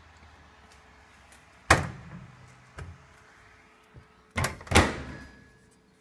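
Microwave oven door being worked: a sharp clunk about two seconds in, a lighter knock a second later, then two loud clunks in quick succession near the end.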